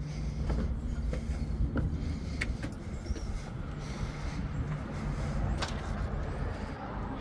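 Footsteps on concrete steps, a few separate sharp taps, over a steady low rumble.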